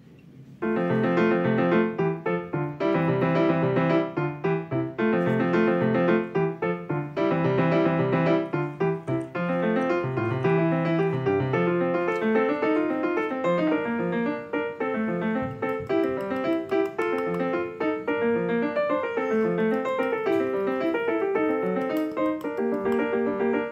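Background piano music, a run of repeated chords and melody notes, starting about half a second in.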